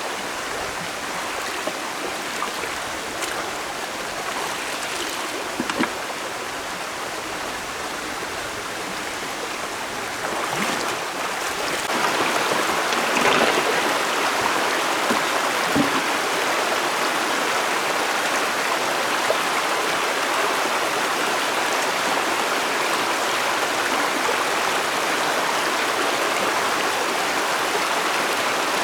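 Flowing stream water rushing steadily, growing louder about a third of the way through and holding there, with a few faint knocks.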